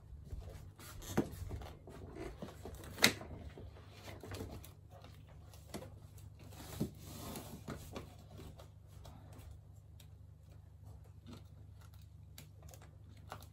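Thin PVC wall panel being handled and pressed flat against the wall by hand: plastic rustling and light knocks, with one sharp plastic knock about three seconds in, over a steady low hum.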